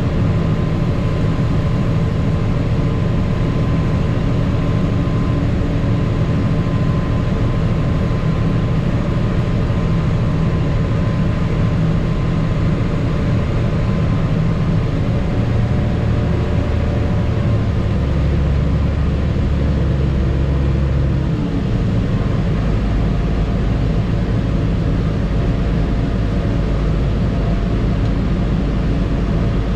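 Tractor engine running steadily under load, pulling a grain cart in the field; the low engine hum shifts pitch twice, a little past halfway through.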